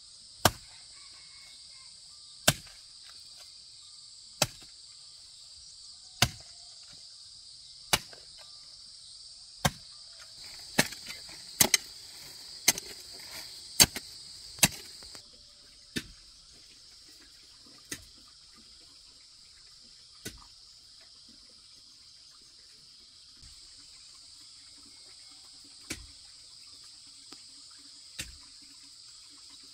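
Insects trilling steadily, with a series of sharp single knocks over them, about one every two seconds at first, several in quick succession in the middle, then only a few near the end.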